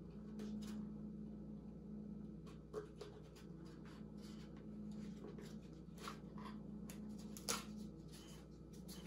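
Faint scraping, rubbing and small clicks of hands and fingers working inside an electric scooter's open deck compartment, pulling at wiring and a part stuck down with silicone-like glue. A steady low hum sits underneath and fades out near the end.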